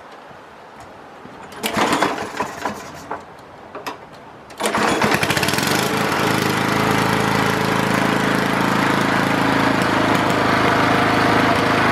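Straight-piped walk-behind lawn mower engine starting: a short burst about two seconds in, then about four and a half seconds in it catches and runs loud and steady.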